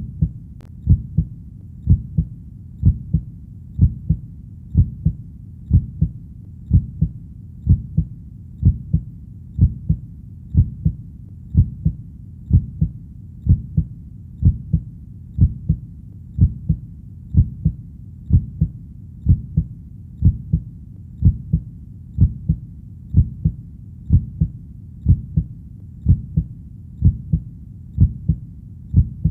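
Heartbeat: a steady lub-dub double thump, low-pitched, repeating about once a second.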